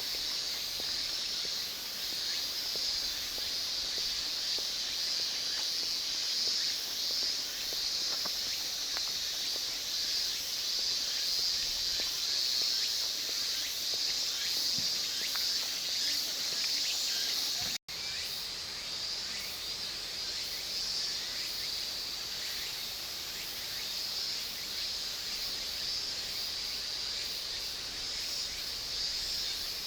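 Chorus of insects chirping in a steady, high-pitched, shimmering drone, with a momentary break about eighteen seconds in.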